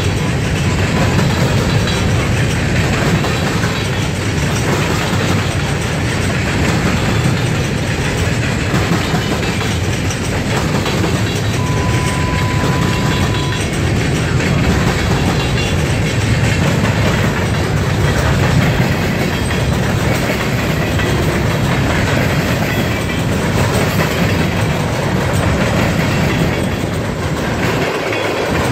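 Freight train of covered hopper cars and tank cars rolling past at close range: a steady, unbroken rumble of steel wheels on the rails.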